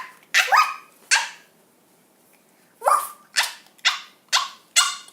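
A child imitating a dog barking: three quick barks, a pause, then five barks at about two a second.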